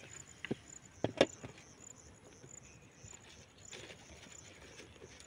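Two sharp knocks of a cooking utensil against a metal sufuria (cooking pot), about half a second and a second in, as cooked ugali is turned out. A faint high insect chirp repeats steadily underneath.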